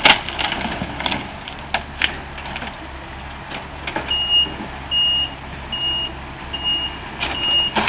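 Komatsu excavator's diesel engine running, with scattered clanks. About four seconds in, its travel alarm starts beeping: a high, single-pitched beep a little more than once a second, the sign that the machine is moving.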